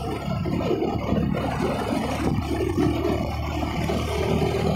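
Motorcycle engine running steadily at cruising speed, heard from the moving bike, with rough wind and road noise buffeting the microphone.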